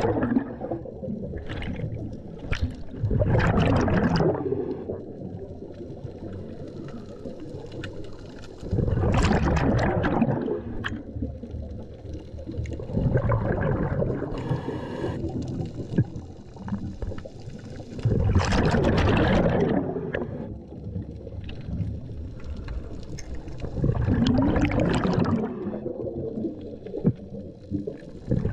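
Scuba diver breathing through a regulator underwater: loud gurgling bursts of exhaled bubbles come every four to five seconds, with quieter stretches between them.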